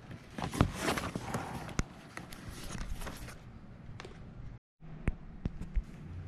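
Long, strap-like ponytail palm leaves rustling as they brush against the camera for about three seconds, then a few sharp taps and footsteps on tile. The sound cuts out completely for a moment about two-thirds of the way in.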